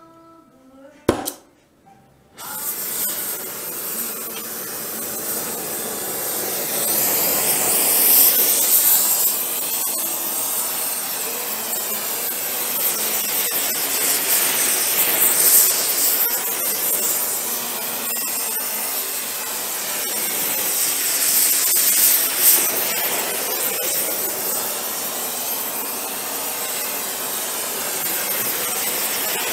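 A click, then about two seconds in an oxy-acetylene torch flame comes on and hisses steadily and loudly, swelling and easing, as it heats a warped steel truck panel to shrink the warp out.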